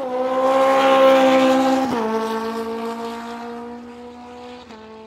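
A high-revving vehicle engine accelerating and shifting up through the gears, its pitch dropping sharply at each shift, three times. It is loudest about a second in, then fades as it pulls away.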